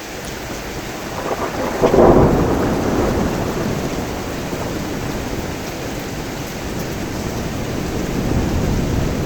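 Heavy rain falling steadily while thunder breaks in: a low rumble starts, peaks sharply about two seconds in, then rolls on under the rain and swells again near the end.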